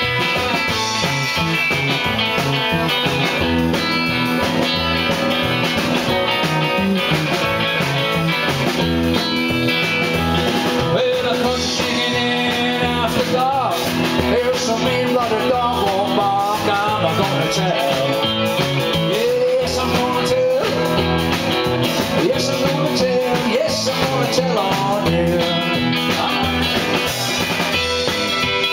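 Live rock and roll band playing loudly on electric guitars, with a guitar line whose notes bend up and down through the middle stretch.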